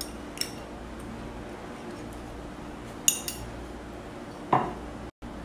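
A spoon clinking lightly against a ceramic spice dish, three short clinks, the last and loudest with a brief ring.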